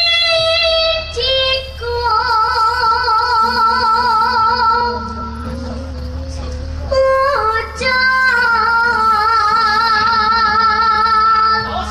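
A young sinden (Javanese female vocalist) singing into a microphone in long held notes with a wide, even vibrato, starting a new phrase about seven seconds in.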